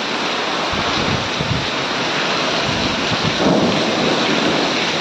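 Heavy monsoon rain pouring steadily in a windy storm, with a low rumble from about one to three seconds in.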